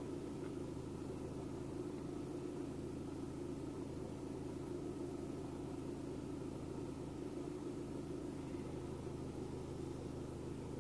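Car engine idling steadily at about 850 rpm while it warms up after a cold start, the idle speed slowly settling down; heard from inside the cabin as a steady low hum.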